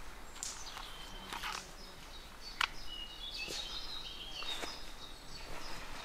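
Footsteps and rustling through leafy woodland undergrowth, with one sharp click about two and a half seconds in. A bird calls with short high notes in the middle.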